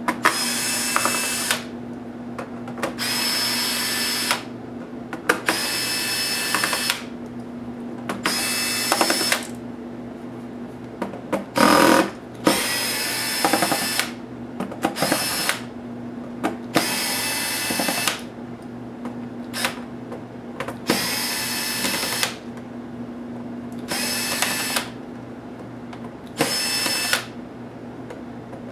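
Cordless electric screwdriver spinning out the bottom-case screws of a laptop, in about a dozen short runs of about a second each with pauses between them. A single louder knock comes about halfway through.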